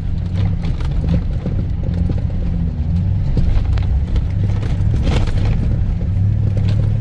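Vehicle driving on a dirt road: a steady low engine and road rumble with scattered knocks and rattles, one louder knock about five seconds in.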